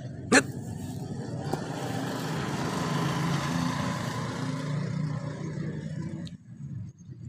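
A motor engine running, growing louder and then fading away over about five seconds, like a vehicle passing by. A single sharp click comes about a third of a second in.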